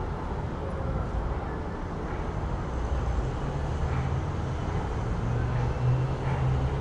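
City street traffic ambience: a steady low rumble of passing vehicles, with one engine's low hum coming up louder in the second half.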